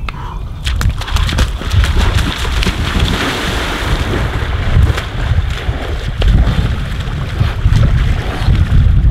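Wind buffeting the microphone in a steady low rumble, with water splashing as a person runs through a shallow channel and swims in it. The splashing is brightest from about a second in to about five seconds in.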